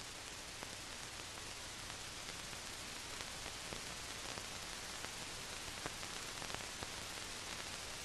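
Steady hiss and low hum of an old film soundtrack, with scattered faint crackles.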